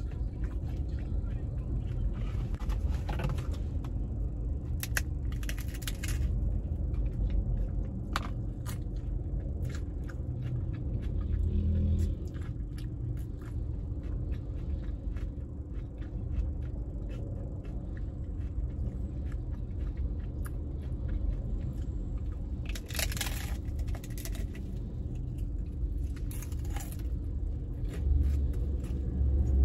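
Close-up crunching and chewing of hard-shell fried fish tacos, with several louder crunchy bites spread through, over the steady low rumble of an idling car.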